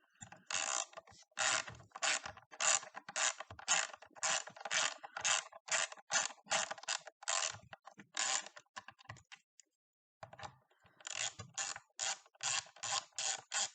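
Hand ratchet clicking in short strokes, about two a second, as a Torx screw is backed out of a battery case; it pauses briefly about nine seconds in, then resumes.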